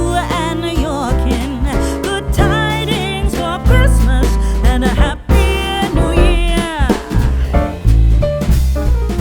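Background music: an upbeat instrumental with drums, a strong bass line and bending guitar-like lead notes.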